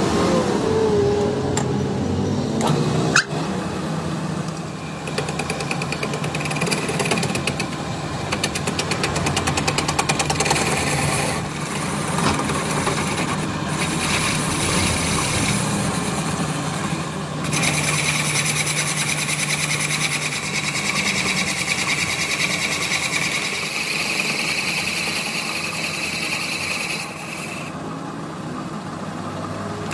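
Metal lathe running as a cutting tool bores and turns a rusty steel bar held in a four-jaw chuck, giving a steady rasping cutting noise. A sharp click comes about three seconds in, and the cutting noise turns harsher and higher-pitched for a long stretch past the halfway point.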